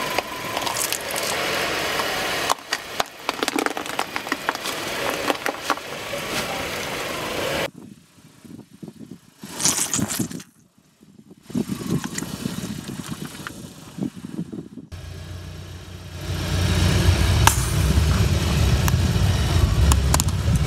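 A car tyre rolling slowly over objects on asphalt and crushing them, in several short cuts with sudden changes: a plastic toy egg cracking, toothpaste tubes bursting, then a row of plastic lighters snapping with sharp cracks. The lighters are heard over the low, steady rumble of the Audi's engine in the last few seconds.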